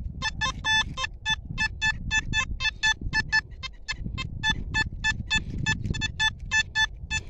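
Metal detector sounding its target tone: a run of short, same-pitched beeps, about four to five a second with a brief pause midway, as the coil is swept back and forth over a buried target. It gives a firm tone, a signal from what turns out to be a bottle cap.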